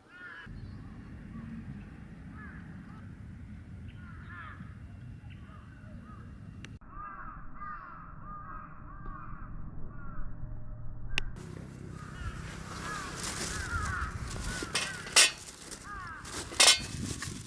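Crows cawing repeatedly over a steady low rumble, with two sharp clicks near the end.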